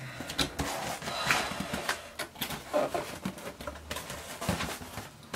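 Cardboard mailer box being handled and opened, with scattered crackling and rustling of cardboard and paper and a few light taps.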